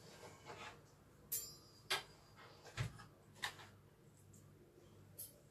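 A quiet room with a handful of short, faint clicks and knocks, spaced roughly a second apart.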